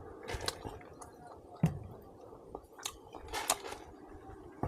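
A person chewing pork ribs close to the microphone: a handful of short, separate mouth clicks and wet bursts, the sharpest about a second and a half in.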